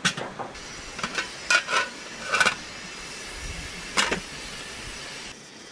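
Clinks and knocks of a porcelain teapot and brass kettle being handled and set down: several short ringing clinks, with the last knock about four seconds in as the teapot is set on top of the kettle.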